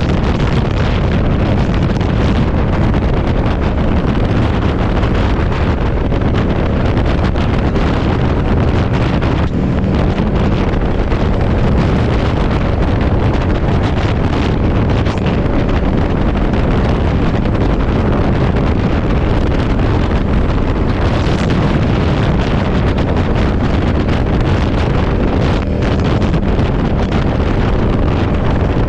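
Loud, steady wind noise buffeting the microphone of a moving motorcycle, with the motorcycle's engine running underneath.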